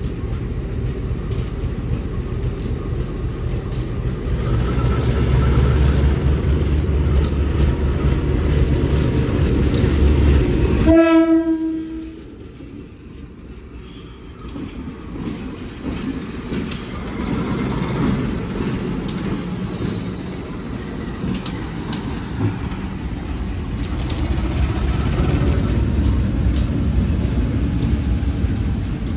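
CC 201 diesel-electric locomotive running as it pulls away, its engine a heavy low rumble. About eleven seconds in a short horn blast sounds, the level drops off abruptly, and a quieter rumble of the locomotive moving follows.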